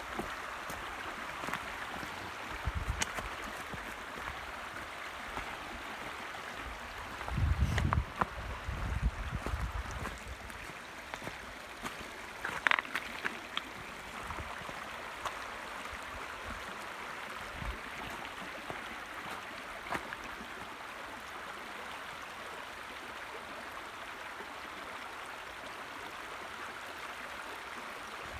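Shallow creek running steadily over a bed of loose shale stones, a continuous rushing babble of water. A few low rumbles and short knocks come in the first half.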